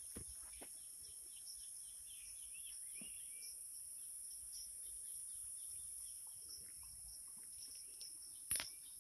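Steady high-pitched chorus of insects, with a few bird chirps around two to three seconds in and a few soft footsteps. There is a louder knock near the end.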